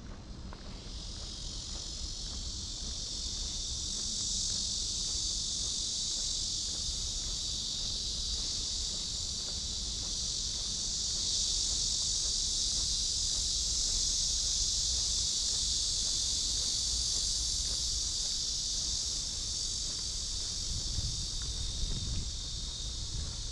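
Chorus of cicadas buzzing, a steady high shrill hiss that fades in about a second in and holds unbroken.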